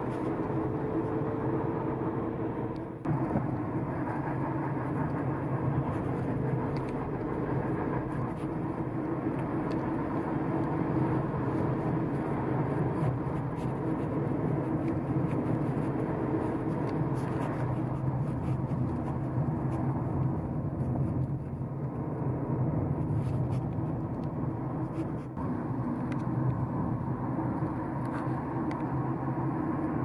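Car engine and tyre noise heard from inside the cabin while driving, a steady drone that dips briefly about three seconds in and again near the end.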